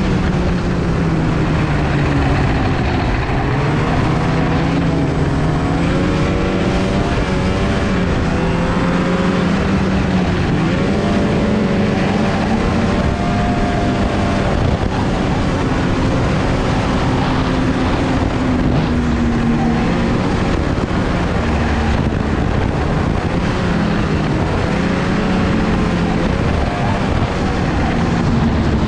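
Snowmobile engine running under way, its pitch rising and falling again and again as the throttle is worked, over a steady rush of track and wind noise.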